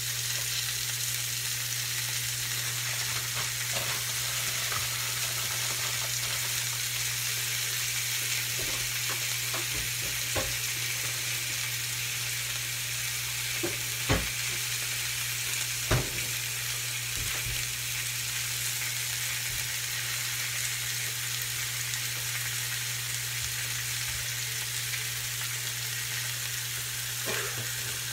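Thin palomilla steak searing in very hot, smoking oil in a frying pan: a steady sizzle with scattered crackles and a couple of louder pops about halfway through. A steady low hum runs underneath.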